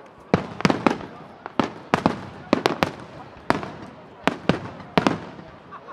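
Fireworks display: aerial shells bursting overhead in quick succession, more than a dozen sharp bangs at uneven intervals, some in rapid clusters of two or three.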